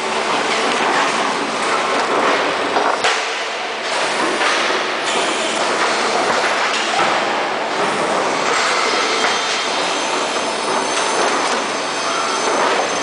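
Factory production-line machinery running, with steady mechanical clatter from the conveyors carrying wooden pallets and a few clanks.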